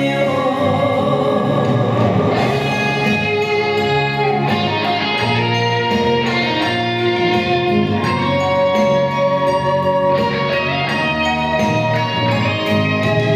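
Recorded song accompaniment for a dance: an instrumental passage of sustained, changing chords with plucked-string sounds, played at a steady loudness.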